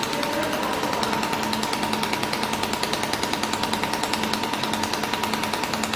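Pulsed YAG laser welding machine firing, each laser pulse a sharp click in a rapid, even train, over a steady tone.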